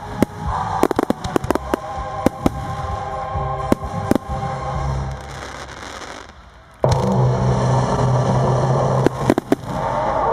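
Fireworks display: aerial shells bursting and crackling in quick succession over a music soundtrack. The sound drops away about six seconds in, then the music comes back louder a moment later with a few more bangs.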